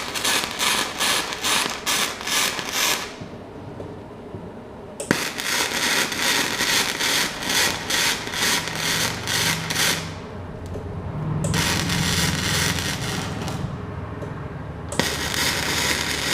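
Magmate 150 MIG inverter welder running flux-core wire: the arc crackles in rapid, even pulses. There are three runs of welding: one stopping about three seconds in, another from about five to ten seconds, and a third starting near the end.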